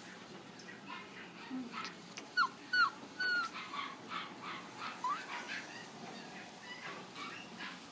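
West Highland White Terrier puppy yipping: three short, high yelps falling in pitch in quick succession about two and a half seconds in, then a rising squeak about two seconds later, among fainter short whimpers.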